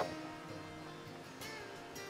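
Quiet background music with sustained notes; a new note comes in partway through.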